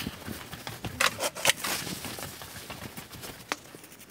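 Small knocks, clicks and rubbing as a wooden toy rabbit and a plastic glue bottle are handled on a workbench. The sharpest clicks come about one to one and a half seconds in.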